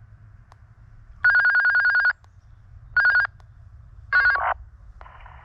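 Rabbit hounds baying on the trail: three separate calls, one long, one short and one that falls in pitch.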